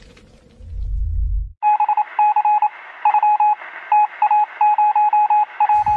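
A brief low rumbling hit about half a second in. Then, from about a second and a half in, high electronic beeps come in quick irregular on-off groups of short and longer tones, over a faint hiss.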